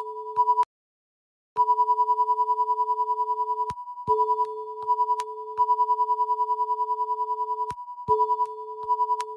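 Hitomi MatchBox broadcast line-up test tones: a steady lower tone under a higher tone that pulses rapidly. The lower tone drops out for a moment about every four seconds, all sound stops for about a second near the start, and each break comes with a click.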